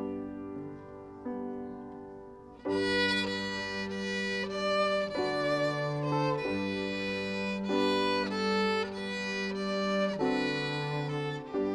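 Grand piano notes fading softly, then about two and a half seconds in a violin and cello come in together, playing a melody of long held notes.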